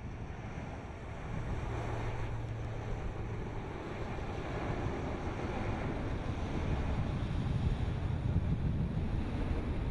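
AG600 amphibious aircraft's four turboprop engines running at takeoff power as it rolls down the runway and climbs away. It is a steady, even noise that grows louder from about a second in and again toward the end, with wind on the microphone.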